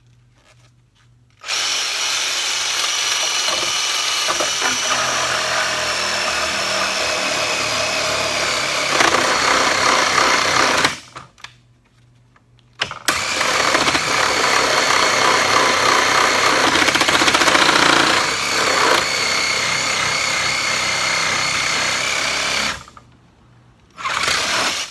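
Electric saw cutting through a wooden pallet, run in two long steady stretches of about nine seconds each with short pauses between, then a brief final burst. The cuts go slowly because the blade is dull.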